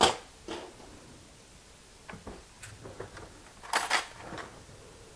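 A string of separate clicks, knocks and light clinks as kitchen items are handled off to the side of the bowl. The loudest comes at the very start, with a close cluster about four seconds in.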